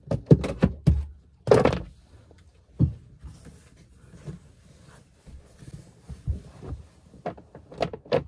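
A plastic cat litter box being handled and set on the floor: a cluster of sharp knocks and clatters with a brief rustle in the first three seconds, quieter handling in the middle, and a few more clicks near the end.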